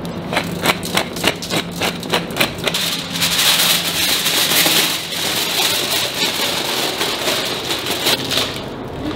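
Aluminium foil crinkling and crackling as it is folded and wrapped around a whole fish: a run of sharp crackles, thickening into continuous crinkling in the middle, then single crackles again.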